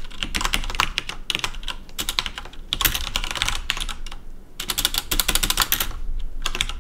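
Fast typing on a computer keyboard: quick runs of keystrokes, broken by a short pause a little past the middle and another near the end.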